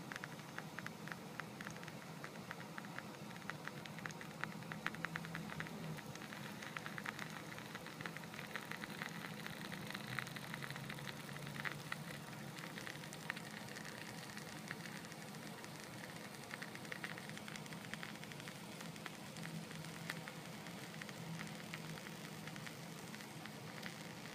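Egg sizzling and crackling as it cooks inside the Rollie Eggmaster's heated non-stick tube: a faint, dense run of tiny pops, busiest about halfway through, over a low steady hum.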